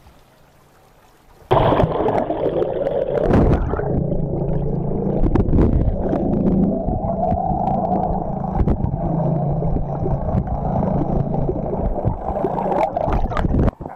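Muffled rushing and gurgling of water over a submerged camera, starting suddenly about a second and a half in as it goes under, with a steady low hum beneath and scattered clicks; it cuts off abruptly near the end.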